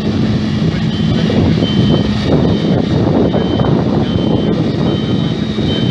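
CLAAS Jaguar 960 Terra Trac forage harvester running loud and steady close by, a dense drone with a low hum. From about a second in, a reversing alarm beeps at a little more than one beep a second.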